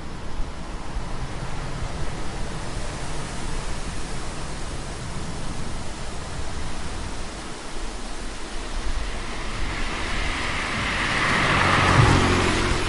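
Steady road-traffic noise, with one vehicle passing close by near the end: it swells, is loudest about twelve seconds in, then fades.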